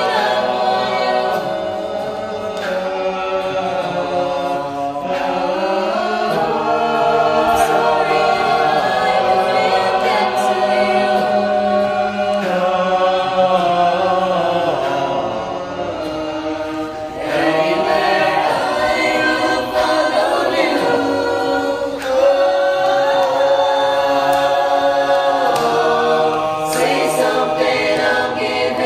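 A choir singing held chords, the voices moving together to new chords every few seconds.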